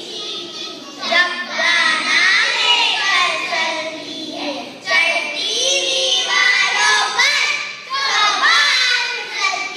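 A group of children's voices singing together, in three loud phrases with short breaks between.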